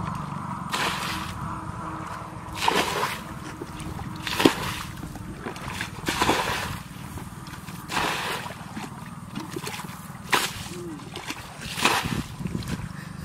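Muddy water being bailed out of a shallow ditch with a plastic bucket: repeated scoops and pours, each ending in a splash, one every one to two seconds.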